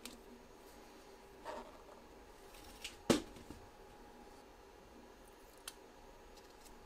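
Quiet handling of a flexible adhesive-backed 3D-printer build sheet: a few soft rustles and taps, the loudest a sharper tap about three seconds in.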